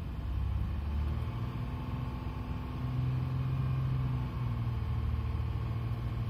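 Honda Odyssey 3.5 L V6 engine revved and held at a steady raised speed while the van stands still, heard from the driver's seat. Revving is the owner's test: the overheating temperature drops as the revs go up, which he reads as a coolant flow problem and blames on the thermostat.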